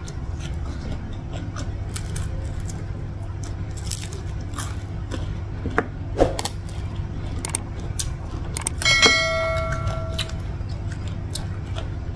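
Close-up eating sounds: chewing and small mouth clicks as rice and fried fish are eaten by hand, over a steady low hum. About nine seconds in, a single sharp clink rings for about a second and a half.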